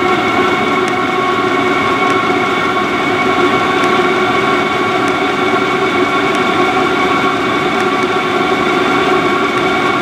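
Vevor diesel air heater running hard as its fuel supply is turned up toward high: a loud, steady whir of the fan and burner carrying several steady tones, with faint regular ticks.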